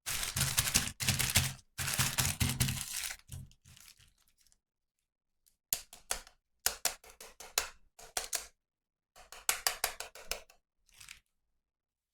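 Toy packaging being torn open and crinkled by hand: about three seconds of continuous rustling and tearing, then, after a short pause, two runs of quick crackles.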